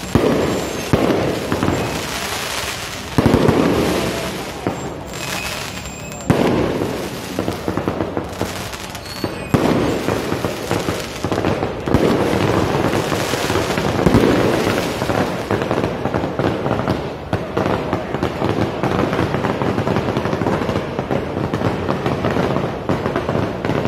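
Fireworks going off without pause: dense crackling and popping, broken every few seconds by louder sharp bangs.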